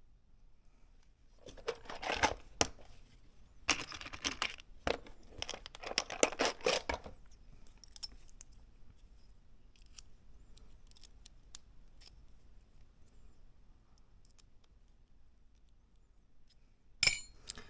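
Hands working on Mini 4WD kit parts: noisy rustling and tearing in bursts for several seconds, then faint scattered clicks and one sharp click near the end.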